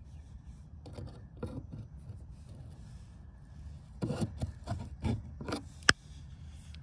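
Hands handling a plastic electrical connector at a car's fuel pump module: rubbing and scraping of plastic, a cluster of knocks about four to five and a half seconds in, and one sharp click just before the end.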